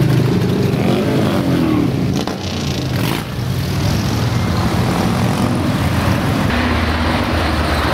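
Harley-Davidson V-twin motorcycles rumbling as they ride slowly past one after another, mixed with passing car traffic.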